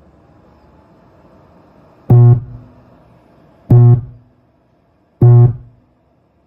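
Rockville RGB 18S powered subwoofer switched on and giving very loud buzzing bursts, three of them about a second and a half apart, each cutting off after a fraction of a second, over a faint hum. This is the unexplained fault noise that has kept the sub out of use, even though its fuse has been checked.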